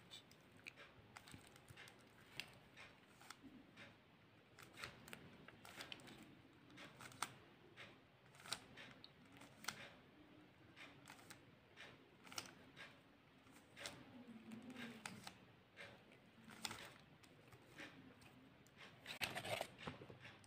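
Plastic 3x3 speedcube being turned by hand: faint, isolated clicks of its layers snapping round every second or two as an A-perm algorithm is worked through slowly, with a quicker run of clicks near the end.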